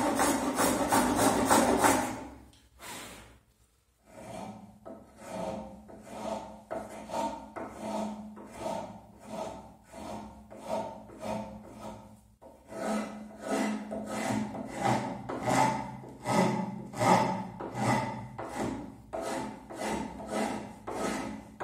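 Half-round rasp pushed by hand across the end of a wooden panel, in regular strokes about two a second with a short pause partway through. Before the rasping there are about two seconds of continuous shaving from a small edge tool, which stops suddenly, then a couple of seconds of quiet.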